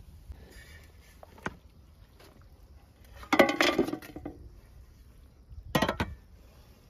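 Aluminium colander clattering and ringing against a metal cooking pot as boiled lamb bones are tipped into it, about three seconds in. A second short metallic clank follows about six seconds in.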